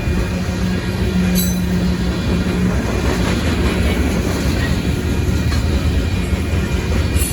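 A Union Pacific manifest freight train's cars rolling past, steel wheels rumbling and clattering on the rails. A brief high wheel squeal comes about a second in, and a steady low hum fades out a little later.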